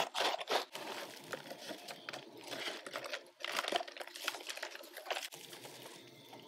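Thin plastic nursery pot crinkling and potting soil crumbling as gloved hands work a plant's root ball, in a run of irregular rustles and crackles, loudest in the first second.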